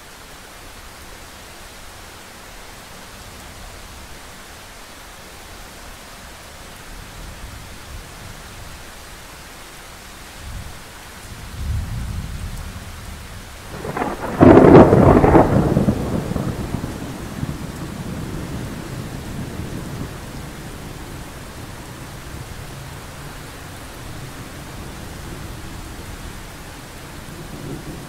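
Thunderstorm with steady rain: a low rumble of thunder builds about twelve seconds in, breaks into a sharp, loud thunderclap about halfway through, then rolls and slowly dies away under the rain.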